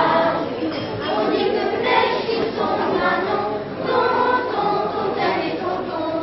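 Children's choir singing together, young voices holding sustained notes in flowing phrases.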